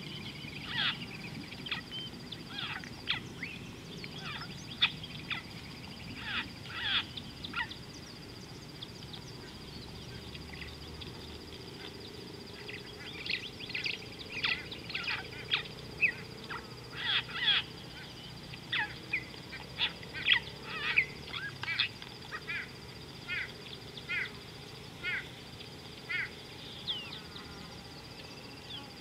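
Birds calling at a waterside: a long series of short, sharp, honking calls in two spells, the second busier than the first. A thin steady high whine runs underneath.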